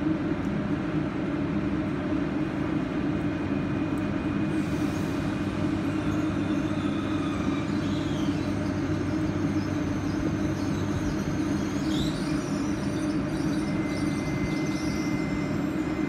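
Steady low hum of regional trains standing and moving slowly through a station, from the electric drive and ventilation units, with faint high-pitched squeals around twelve seconds in.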